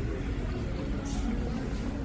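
Steady low rumble of car cabin road noise while driving.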